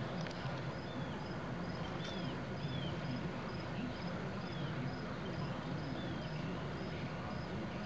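Outdoor ambience: a cricket chirps evenly about twice a second, with short arching bird calls now and then, over a steady low rumble.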